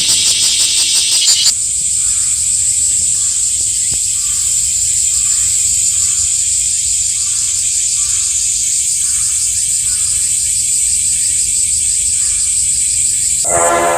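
A loud, steady chorus of cicadas, a high pulsing drone that is louder for the first second and a half, with a fainter pulsed call repeating about once a second. Brass music comes in just before the end.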